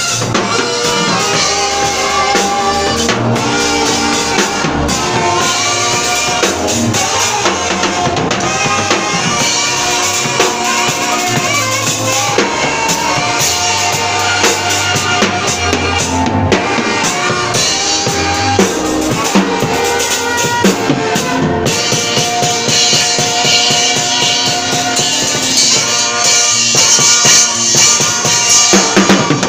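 Live worship music: saxophones playing a melody of long held notes over a drum kit with bass drum and snare. It grows louder and brighter over the last few seconds.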